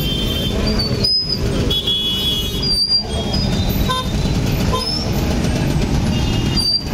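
Busy road traffic crossing the railway tracks: motorcycle engines running over a steady traffic noise, with vehicle horns tooting now and then, the clearest about two seconds in.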